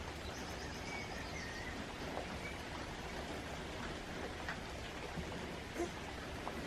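Steady rain falling: an even hiss with a few faint ticks of drops.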